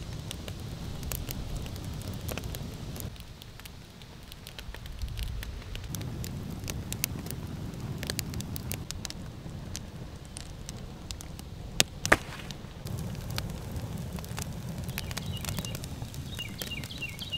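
Newly lit wood fire crackling, with scattered sharp pops and snaps. The two loudest come about twelve seconds in, over a low steady rumble.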